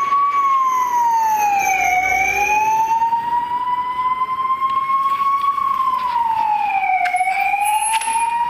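Ambulance siren wailing. Its pitch climbs slowly over about three seconds and drops over about one and a half, and this happens twice.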